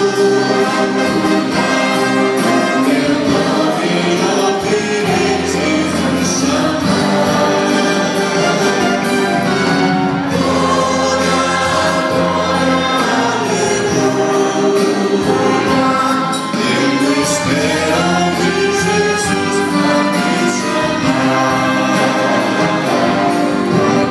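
A large church choir singing a hymn with an orchestra of violins, saxophones and other instruments accompanying.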